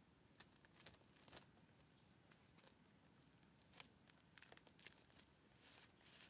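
Near silence with a dozen or so faint, short clicks and crackles scattered through it, the sharpest a little under four seconds in, and a soft rustle near the end.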